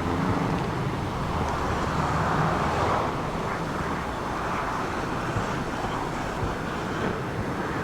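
Subaru Impreza GC8 rally car driving on a snow stage: its engine running over a steady rush of noise.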